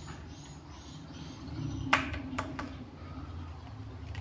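Handling noise from a carbon fishing rod's butt section being turned in a gloved hand: three sharp clicks close together about two seconds in, over a low steady hum.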